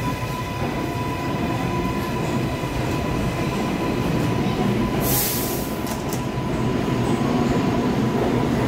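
New York City subway train running along the platform, a steady rumble with a thin high hum over it. A short hiss comes about five seconds in, and the sound grows a little louder near the end.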